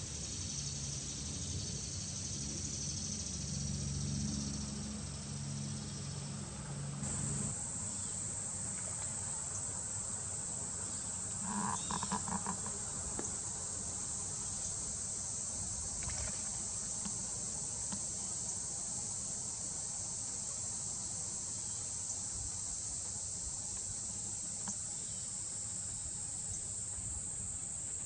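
Outdoor summer ambience of insects trilling steadily at a high pitch, growing stronger about seven seconds in. A low steady hum underlies the first seven seconds, and a brief, rapidly pulsed call sounds about twelve seconds in.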